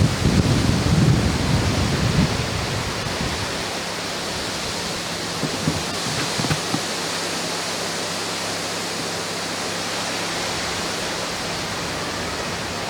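Steam locomotive hissing steadily as steam escapes, with a louder low rumble during the first three or four seconds that then settles to an even hiss.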